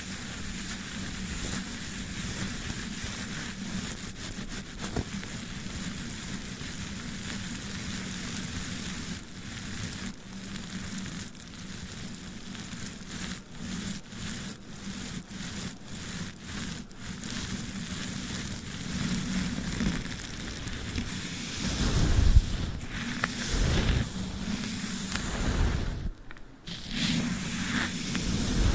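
Sticky tape and a brush handled close to the microphone, making a continuous crackling, rustling sound with brief sharp clicks. Louder low bumps come in over the last several seconds.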